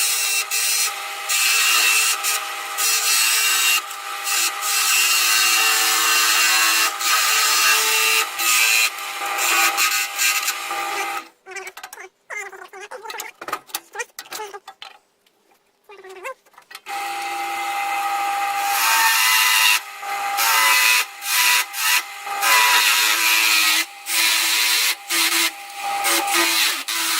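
Wood lathe running with a parting tool cutting into the spinning wooden blank, a steady hum with scraping hiss and rapid catches. The cutting drops away almost to silence for several seconds in the middle, then resumes.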